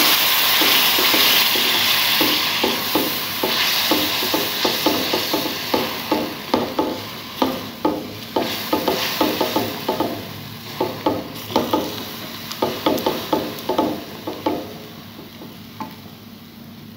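Spiced masala sizzling in oil in a metal kadai after half a cup of water has gone in, while a slotted spatula stirs it and knocks and scrapes against the pan in quick repeated strokes. The sizzle is loudest at the start and dies down, and the stirring stops near the end.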